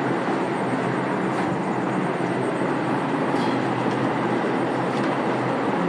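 A steady, even noise with a faint low hum.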